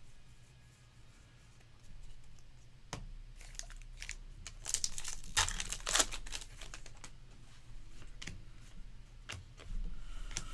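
A trading card pack wrapper being torn open and crinkled by hand. The crackling comes in clusters and is loudest around five or six seconds in.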